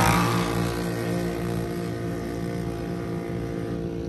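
Two ATV engines held at high revs in a drag race, pulling away down a dirt strip, their sound fading steadily as they recede.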